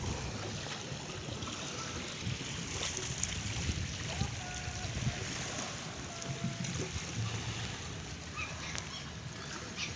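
Small waves lapping on a pebbly beach: a steady wash of water at the shoreline.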